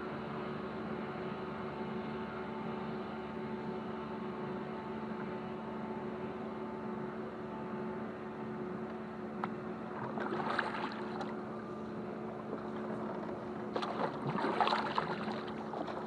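Kayak paddle strokes in the water beside a clear canoe, with two louder splashing strokes around ten and fourteen seconds in, over a steady hum.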